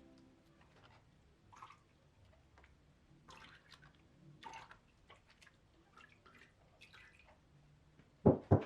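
Glue-and-salt slime being stirred and handled, making faint, scattered sticky squishes and small wet clicks, with two louder slaps near the end.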